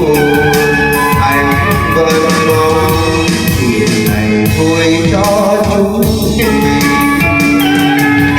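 A Vietnamese ballad played back loud through a sound system: an instrumental passage of held melody notes over a steady drum beat, with no singing.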